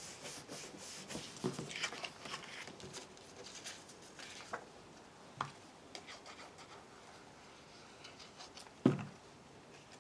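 Cardstock rustling and sliding over a craft mat as pieces are picked up and positioned by hand, with scattered light taps. One sharp, louder knock comes near the end.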